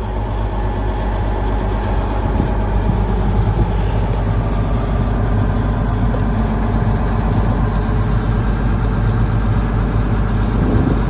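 Big Versatile four-wheel-drive tractor's diesel engine running steadily just after starting on freshly installed batteries. It builds slightly over the first couple of seconds, then holds even.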